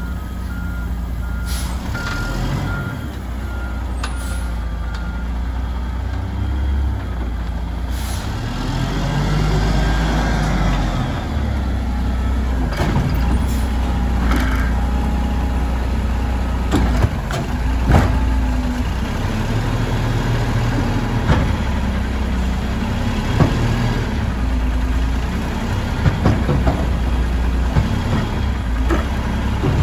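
Mack LE garbage truck's backup alarm beeping steadily for the first five seconds as it reverses, then its diesel engine running with a rise and fall in pitch. Several sharp metallic clanks in the second half as the front-loading arm lifts a waste cart.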